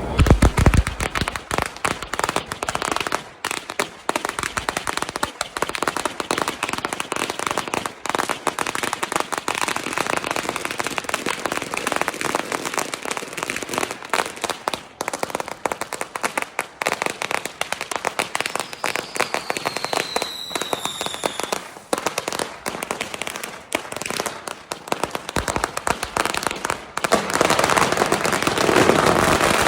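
Strings of firecrackers going off in rapid, continuous pops. A short falling whistle comes about two-thirds of the way through. Near the end the popping turns into a denser, louder crackle.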